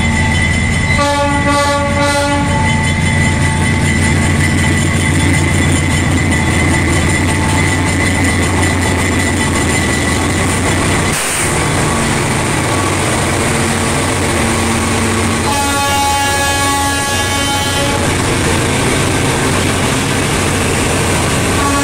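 Diesel-electric locomotives of a loaded freight train passing close by, their engines droning steadily. The multi-note horn sounds briefly about a second in, then again for a couple of seconds around the middle of the second half.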